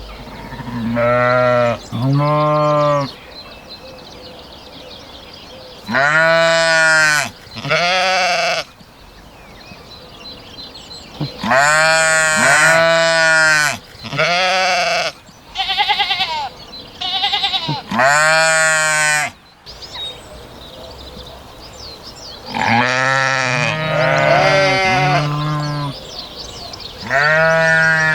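Sheep bleating repeatedly: about a dozen wavering baas of around a second each, coming in clusters with short pauses between. Some calls are higher-pitched than others.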